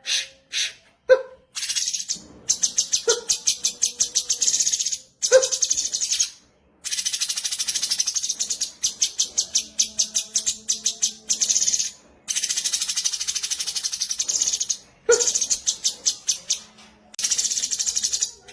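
Cucak cungkok song: long runs of rapid, high-pitched rattling chatter, about ten notes a second. Four times it is broken by a short, loud, lower whistled note, about a second in, near three and five seconds, and again near fifteen seconds.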